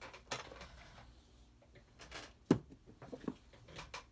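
Small handling noises on a workbench: scattered light clicks and rustles, with one sharper knock about two and a half seconds in.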